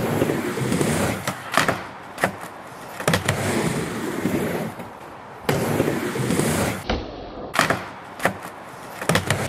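Skateboard wheels rolling across a wooden ramp in repeated passes, broken by sharp clacks of the board's tail and wheels striking the ramp and its coping.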